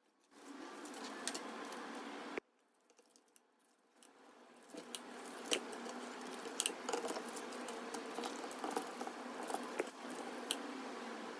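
Knife carving through a charred, juicy shawarma stack of chicken, turkey, beef and lamb fat: a wet, crackly squishing with sharp crunchy ticks as the blade cuts the crisp crust. A short stretch cuts off suddenly about two seconds in, and after a pause a longer stretch builds up again and runs on.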